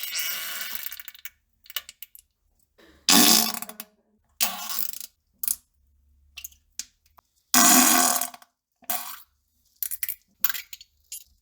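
A string of fart and pooping sounds: separate sputtering blasts, the two loudest about three and eight seconds in, with shorter splats and crackles between them. A hiss fades out in the first second.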